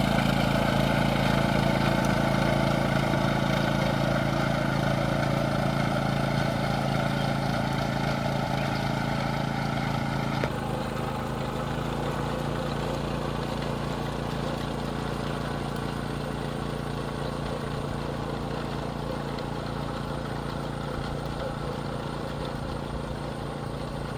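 Small engine of a rice transplanting machine running steadily, slowly growing quieter, with a slight change in its sound about ten seconds in.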